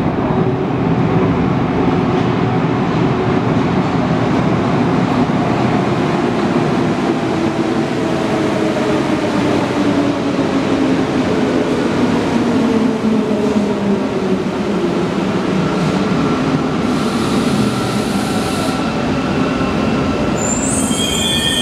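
CAF NS-07 rubber-tyred metro train pulling into the station and braking to a stop: a loud rumble with a whine that falls in pitch as the train slows. About seventeen seconds in there is a two-second hiss, and near the end a few short high tones.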